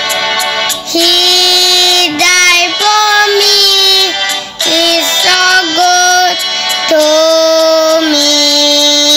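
A child's voice singing a song, a melody of held notes ending in one long note.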